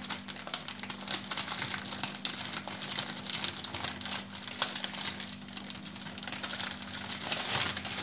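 Thin plastic sheet crinkling and rustling in irregular small clicks as hands peel a pressed potato papad off it and lay it down, over a faint steady hum.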